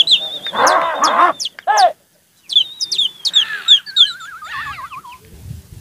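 Shrill human whistling at a pigeon flock: a long steady high whistle, then short sharp chirping whistles and, near the end, a wavering trill that slowly falls. In the first second or so men shout together.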